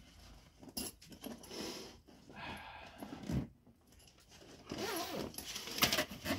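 Zipper of a fabric tool bag being pulled open in several short strokes.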